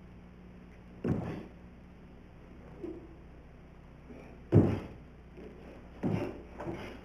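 A karateka performing a Shotokan kata: four sudden thuds of feet landing and stepping, with the snap of the uniform, about a second in, halfway through (the loudest), and twice near the end, over a faint steady hum.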